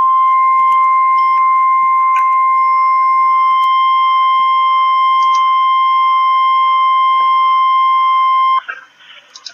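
NOAA Weather Radio warning alarm tone: one loud, steady, high-pitched tone near 1,000 Hz that cuts off suddenly about eight and a half seconds in. It is the signal that a severe thunderstorm warning is about to be broadcast.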